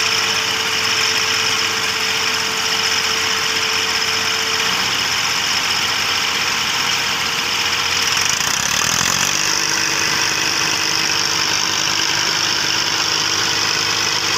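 Diesel tractor engine running steadily while it strains to pull a chained, heavily loaded sugarcane trolley. Its note shifts about nine seconds in.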